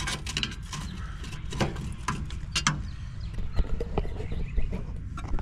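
Irregular light clicks, knocks and rattles as a hand moves the wiring and touches the sheet-metal parts inside a gas pack's burner compartment, over a steady low hum.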